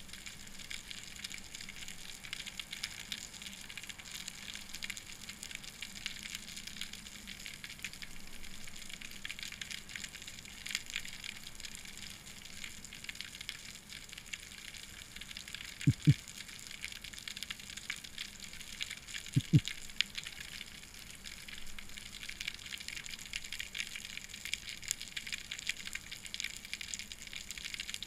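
Underwater ambience on a rocky sea bottom: a steady fine crackling and hiss. Past the middle come two short low thuds about three and a half seconds apart.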